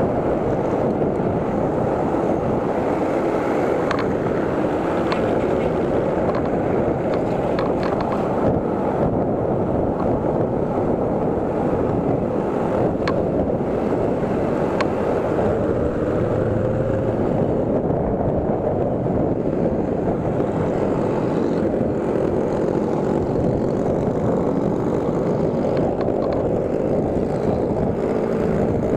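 Steady wind and road noise on an action camera's microphone, riding an electric scooter through traffic.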